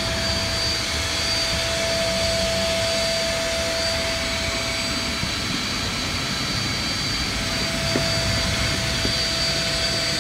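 Elite electric air pump running steadily with a constant whine, sucking the air out of a large inflatable PVC boat fender through its valve to deflate it.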